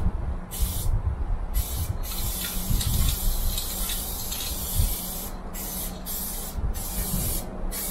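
Aerosol spray-paint can hissing in bursts as paint goes onto a freight wagon: a couple of short sprays, one long spray of about three seconds, then several quick short sprays. A low rumble runs underneath.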